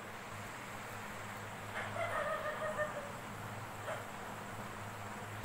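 A faint animal call: one drawn-out, slightly wavering note lasting about a second, heard about two seconds in over a steady low hum.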